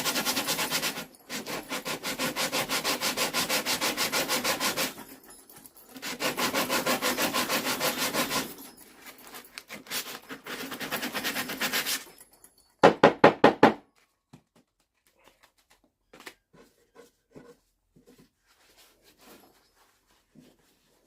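Hand sanding of a tack hammer with sandpaper: rapid back-and-forth rubbing strokes in several runs with short pauses between. About 13 s in comes a brief, louder burst of strokes, after which only faint light knocks and handling remain.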